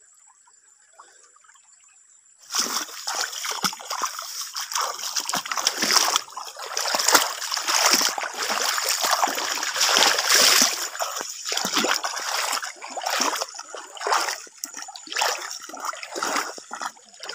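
Footsteps wading through a shallow stream, with irregular splashing and sloshing at each step, starting about two and a half seconds in.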